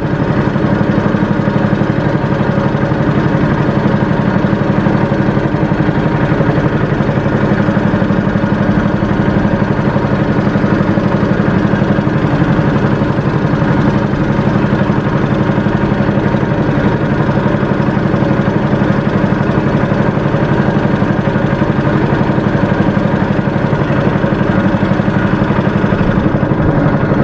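A small fishing boat's engine running steadily at slow trolling speed, an even, unbroken drone.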